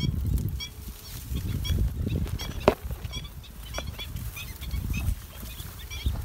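A flock of black-winged stilts calling with many short, sharp notes, several a second, over wind rumbling on the microphone. A single sharp knock sounds near the middle.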